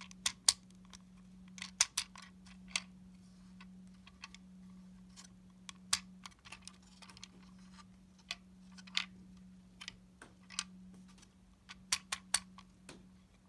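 Plastic Lego parts clicking and rattling irregularly as a Lego puzzle box is tilted and turned by hand to line up its internal locking pieces, over a faint steady hum.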